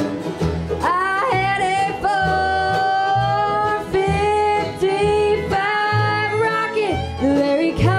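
Live bluegrass band music: a melody of long held notes with pitch slides over a steady bass and guitar rhythm.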